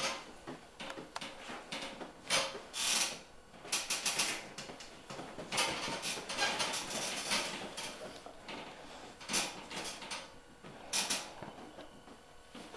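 Two golden retrievers mouthing and tugging at the same toy: irregular short bursts of chewing, scuffling and scraping, with no rhythm.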